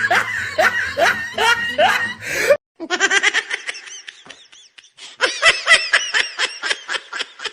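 Laughter in quick repeated ha-ha bursts. It cuts off abruptly about two and a half seconds in, and another bout of laughing follows, louder in the second half.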